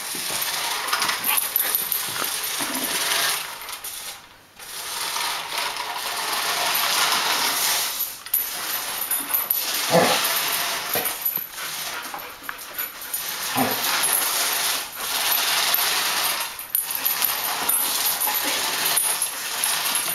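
Small battery-powered RC toy car driving on a tile floor, its electric motor and plastic gears whirring with a faint high whine in spurts that stop and start every second or few. A golden retriever whines briefly twice, about halfway through and a few seconds later.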